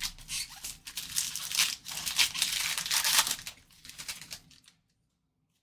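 Crinkling and tearing of a trading-card pack's wrapper as it is handled and ripped open, loudest in the middle and stopping just before the end.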